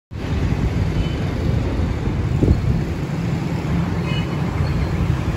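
Steady low rumble of road traffic, with a brief louder swell about two and a half seconds in.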